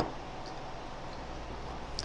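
Steady background hiss with a low hum, broken by a couple of faint light ticks.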